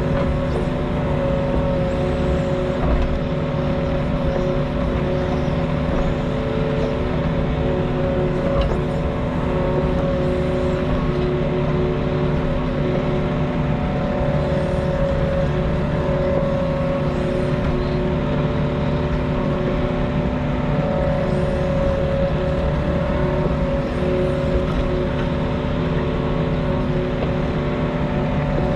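Diesel engine of a compact excavator running at a steady, constant speed, its pitch holding without revving up or down, with a few faint clicks.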